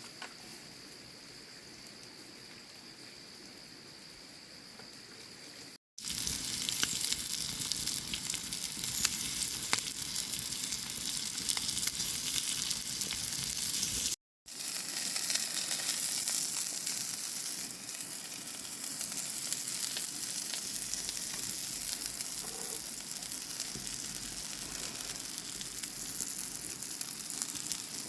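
Food sizzling and frying in a pan, a steady crackling hiss. For the first several seconds there is a quieter steady hiss with a thin high tone, then the frying comes in louder; the sound drops out briefly twice.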